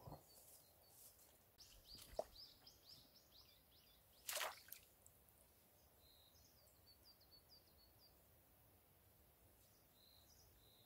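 Near silence with faint small-bird chirps: quick runs of high chirps about two seconds in and again around six to seven seconds, and a few short high notes near the end. A single brief noise is heard about four seconds in.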